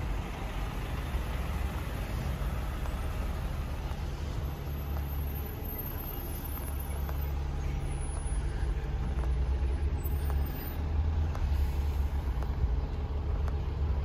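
Street traffic: a motor vehicle engine running, a steady low rumble with a faint hum.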